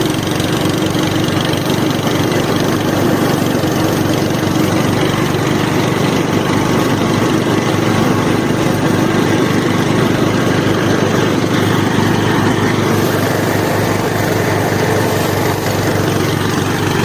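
A small engine running steadily at an even speed, with no change in pitch or load.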